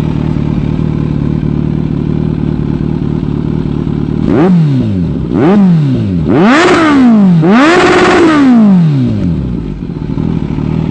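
Kawasaki Z900 inline-four motorcycle engine idling through an aftermarket exhaust, then revved four times. The first two are short blips; the last two are held high for about a second each before it drops back to idle.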